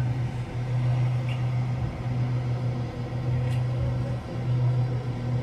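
A steady low hum that dips briefly a few times.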